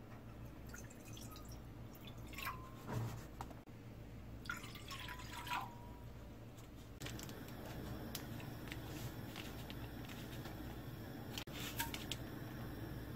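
Water poured into a stainless steel pot in two short splashing pours, about a cup and a half in all. A ramen dried-vegetable flake packet is shaken into the liquid near the end. A steady low hum runs underneath.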